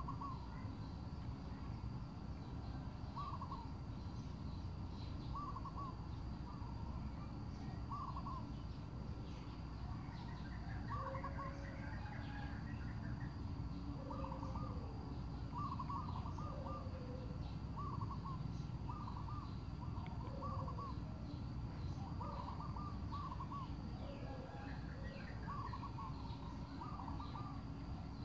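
Birds calling over a steady low rumble: short clusters of hooting notes repeat every second or two, with a few higher chirps about halfway through.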